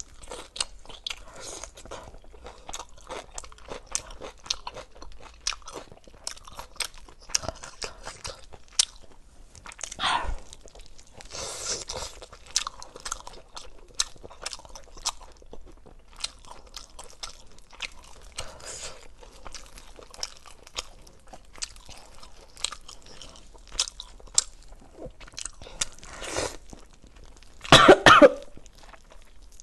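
Close-miked chewing of spicy braised lamb ribs: wet smacking, tearing and crunching bites that go on throughout. Near the end comes one loud, short cough.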